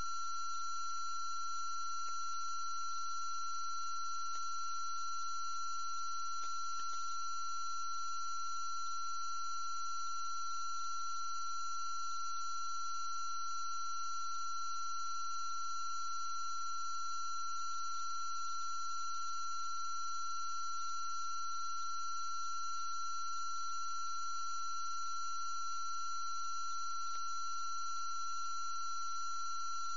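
A steady electronic tone held at one high pitch without a break, with fainter higher tones and a low hum beneath it. A few faint clicks come through, two of them close together about six to seven seconds in.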